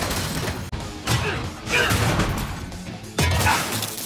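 Cartoon fight-scene soundtrack: dramatic music with crash and impact effects as armoured suits clash, with sharp hits about a second in and again just after three seconds.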